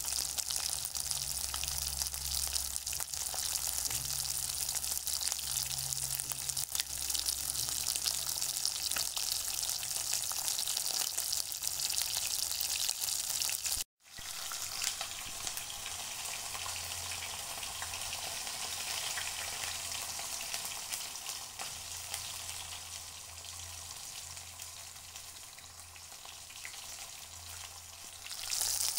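A steady, crackly hiss, broken by a brief dropout about halfway through and a little quieter after it.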